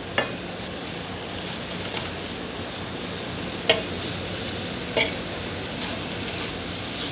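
Chicken fillets sizzling steadily as they fry in an electric skillet. A metal fork clicks sharply against the pan three times as the pieces are moved.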